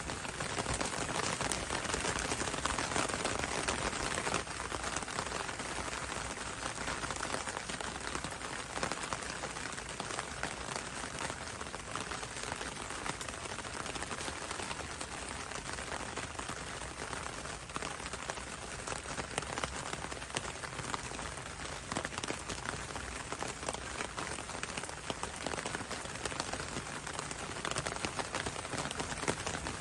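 Steady rain falling on leafy foliage: a dense patter of many small drops over an even hiss.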